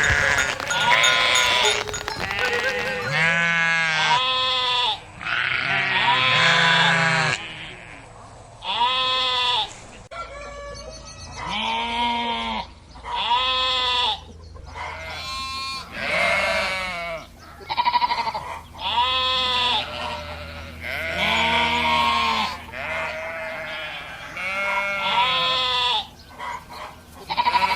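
Sheep bleating over and over: a long run of separate bleats, each about a second long, rising and then falling in pitch, with short gaps between them.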